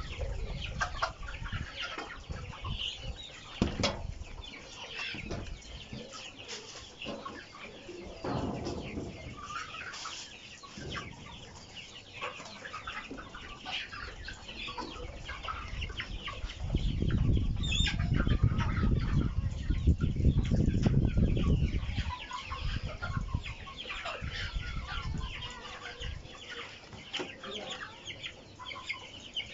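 A flock of tiger chickens clucking and calling continually, many birds at once. A loud low rumble sits under them for a few seconds a little past the middle.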